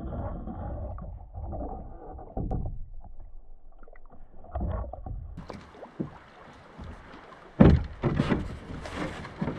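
Muffled water sound heard from beneath a gliding canoe. A little past halfway it opens into clearer open-air sound, with knocks and thumps from a wooden canoe as the paddler climbs into it at the shore, the loudest thump about three quarters through.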